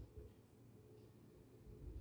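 Near silence, with faint scratching of a pen writing on paper.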